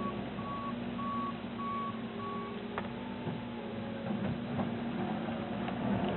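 2009 New Holland L175 skid steer's backup alarm beeping about one and a half times a second while it reverses, stopping about two and a half seconds in, over its steadily running diesel engine. A sharp click follows just after the beeping stops.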